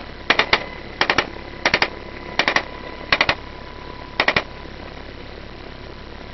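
Steady helicopter cabin noise from rotor and engines, cut by six short bursts of three rapid sharp cracks, roughly one burst every three-quarters of a second over the first four and a half seconds.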